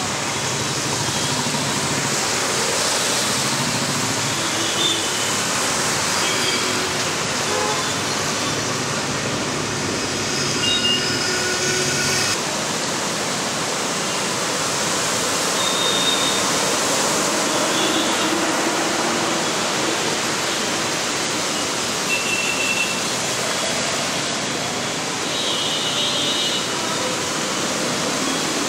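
Road traffic driving through standing floodwater: a steady hiss of tyres spraying water, with short horn beeps now and then.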